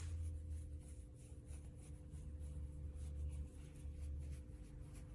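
Fingers scratching a small dog's curly fur, a soft repeated rubbing, over a low rumble that comes and goes and a steady hum.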